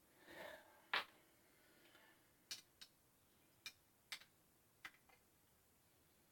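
About eight scattered sharp clicks from a Phillips screwdriver working at a factory-over-tightened screw in a ceiling-fan mounting bracket. The loudest click comes about a second in.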